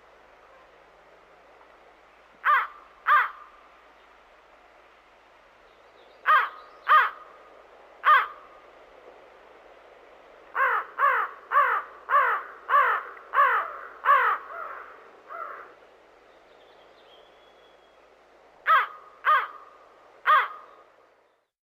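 Crow cawing in short, harsh calls over a faint steady hiss: a pair of caws, then three, then a fast run of about seven, then three more.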